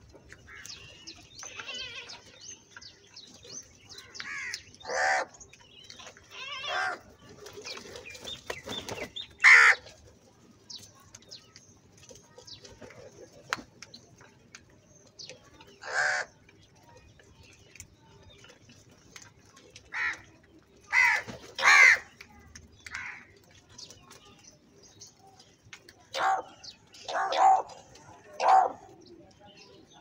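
House crows cawing: single harsh caws every few seconds, a quick pair about two-thirds of the way in and three more close together near the end. Faint pecking clicks come from the flock feeding on grain.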